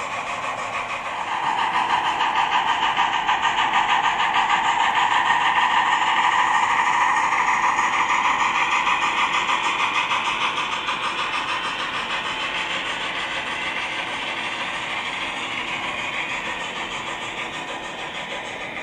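HO-scale model steam locomotive's Loksound 5 sound decoder playing steam running sounds through its small onboard speakers, along with the train's wheel noise on the track. It grows louder about a second and a half in and then slowly fades as the train passes and moves away.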